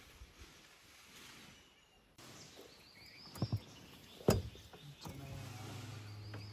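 A few sharp knocks, then from about five seconds in a vehicle engine starts a steady low hum; faint bird chirps sound in the background.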